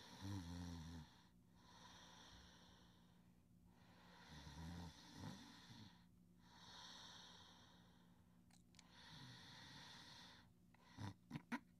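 A girl's soft snoring in sleep: slow, deep breaths about every two and a half seconds, some with a low snore, and a few quick snorts near the end.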